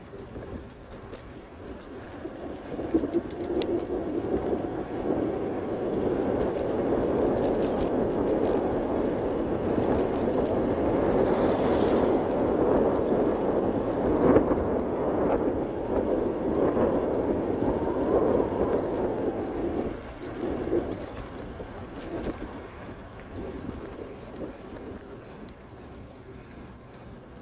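Wind rush and road noise from a bicycle in motion on a paved road. It builds over the first few seconds, stays loudest through the middle, and eases after about twenty seconds.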